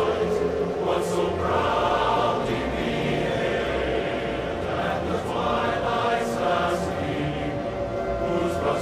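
A choir singing a national anthem: full, sustained choral music at a steady level.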